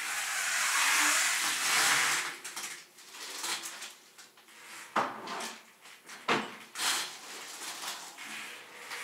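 Plastic shopping bags and packaging rustling and crinkling as groceries are taken out, loudest in the first couple of seconds, with two sharp knocks of items being set down near the middle.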